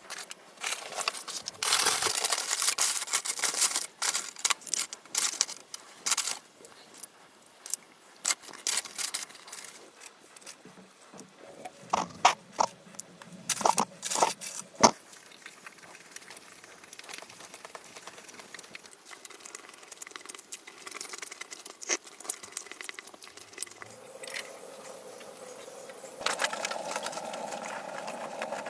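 Irregular knocks, scrapes and crackling from handled materials, with a few sharp clicks, followed near the end by a steady hum that grows louder.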